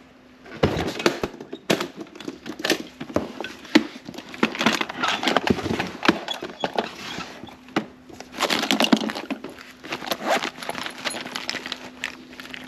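Handling noise from an aluminium makeup case being carried and opened: a run of sharp clicks and knocks from its metal latches, lid and trays, with rustling as the makeup and a pouch of brushes inside are rummaged through.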